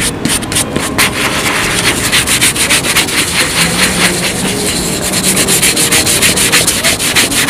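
A fine plastic-bristle brush scrubbing cleaning gel into a suede boot, in quick, even back-and-forth strokes at about five a second.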